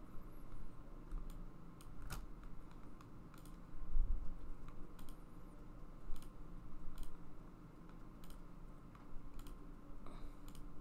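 Irregular sharp clicks of a computer mouse and keyboard, with a steady low hum underneath and a soft low thump about four seconds in.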